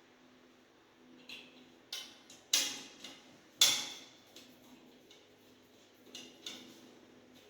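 Irregular sharp clicks and knocks of metal tools and fittings being handled during plumbing work, about eight in all, the loudest about two and a half and three and a half seconds in.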